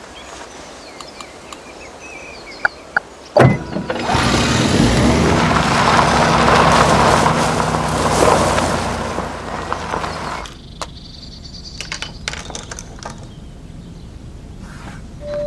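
A van's engine running loudly for about six seconds as the van moves off, after a single sharp knock, then dropping away suddenly; faint bird chirps before it.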